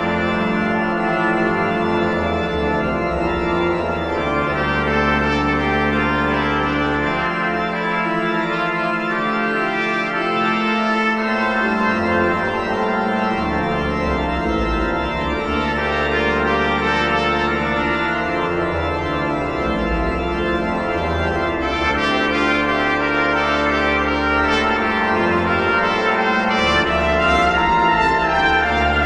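Trumpet and organ playing together: sustained organ chords over deep held pedal notes that change every few seconds, with the trumpet line above.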